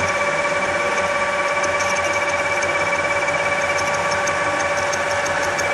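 Radial drill press boring through 1-inch 1045 steel plate, the twist drill cutting under milky cutting fluid. It runs as a steady machine drone with a held high whine and faint quick ticking.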